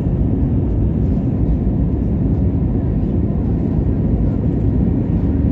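Airliner cabin noise during takeoff: the engines and airflow make a loud, steady low rumble.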